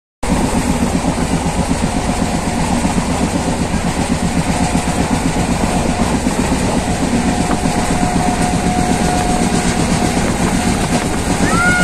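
Passenger train running at speed, heard from on board: a steady rumble and rattle of wheels on rails. A faint steady whine joins about seven seconds in.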